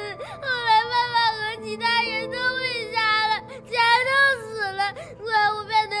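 A young boy crying hard, high-pitched sobbing wails broken into short phrases as he speaks through tears, over soft background film score with long held notes.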